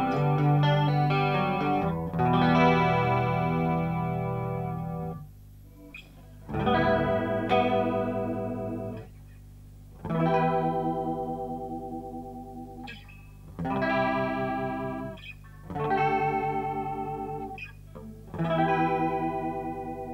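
Electric guitar played through a Stomptown Penny Royal, a Small Clone-style analog chorus pedal. A quick run of picked notes gives way to chords struck about every two to three seconds and left to ring out and fade, each with the chorus's wavering shimmer.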